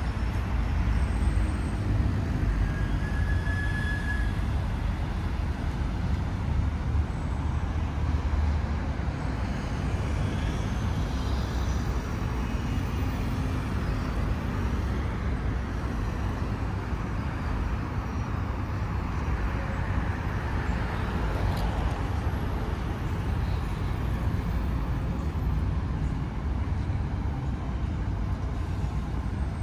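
Steady road traffic noise: a continuous city-street rumble of passing vehicles.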